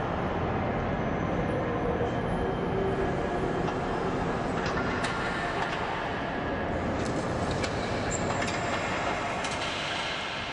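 Car assembly plant noise: a steady mechanical din of machinery and conveyors, with scattered sharp clicks and clanks.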